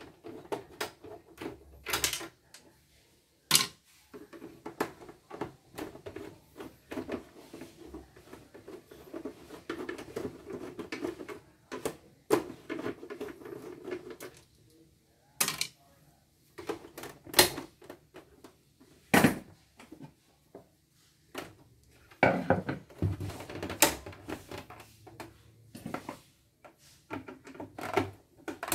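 Plastic housing of a portable CNY embroidery machine being unscrewed and prised open with a screwdriver: stretches of scraping broken by many sharp clicks and knocks of plastic.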